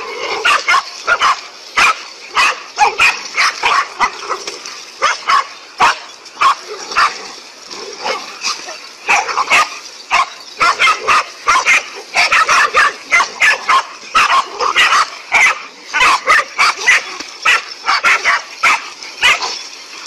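Several dogs barking rapidly as they confront a large snake, the barks overlapping with hardly a pause.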